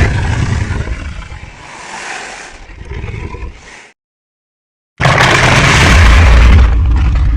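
Tyrannosaurus rex roar sound effects: a loud, deep roar trails off into lower rumbling growls and stops, and after a second of silence another loud, deep roar begins about five seconds in.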